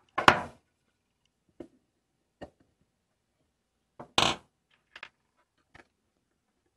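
Steel skate plates of a wooden plow plane clinking and knocking against the plane's wooden body and the bench as they are fitted. There are two louder clatters, about a quarter-second in and about four seconds in, with a few light clicks between and after.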